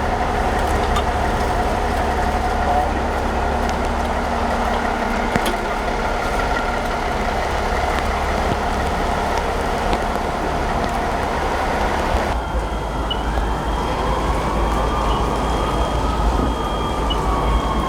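Heavy diesel engines of fire apparatus running steadily with a deep rumble. About two-thirds of the way through the sound changes abruptly, and a faint tone slowly rises and then falls.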